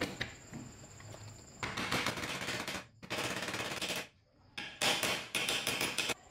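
Rapid, densely repeated metal taps in three bursts of about a second each, with short pauses between: a hammer tapping the electric chainsaw motor's aluminium end cap down onto its housing to seat it.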